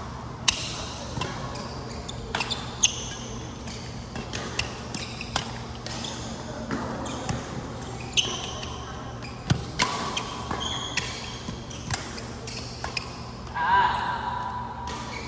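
Badminton rally: sharp racket strikes on a shuttlecock every couple of seconds, with brief squeaks of court shoes on the hall floor between them. A louder wavering squeak or call comes near the end.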